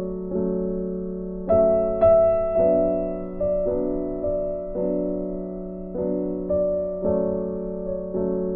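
Soft background piano music: notes and chords struck one after another and left to ring and fade.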